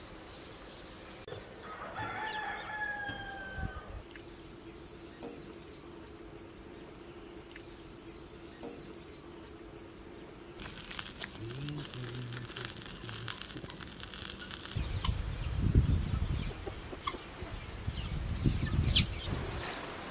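A rooster crows once, about two seconds in: one long call falling slightly in pitch. Later come a stretch of hiss and some loud low rumbles.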